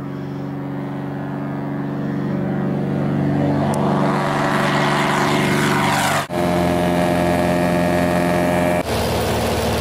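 Light single-engine propeller airplane taking off at full power, its engine and propeller drone growing louder over the first few seconds. The sound changes abruptly about six seconds in to the engine heard from inside the cabin, and changes again near nine seconds.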